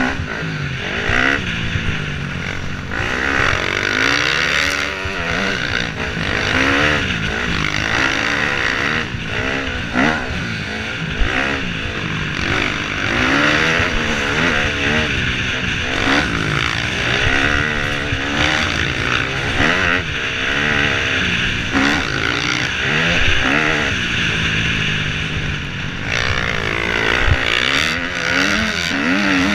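KTM 250 dirt bike engine heard from the rider's helmet camera, revving hard and falling back again and again through gear changes and over jumps. Wind rushes over the microphone throughout.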